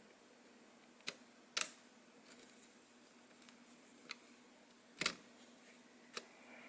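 A few sharp clicks and light taps of a laptop motherboard being handled and set back into its plastic chassis, the loudest about one and a half seconds in and again about five seconds in.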